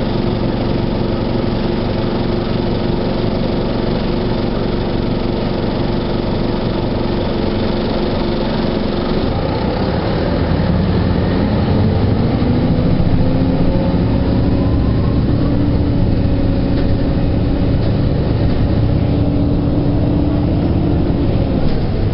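Detroit Diesel Series 50 inline-four diesel of a 1997 NovaBUS RTS transit bus idling steadily, then, about nine seconds in, pulling away under load, its pitch rising as the bus accelerates through the Allison V731 automatic transmission.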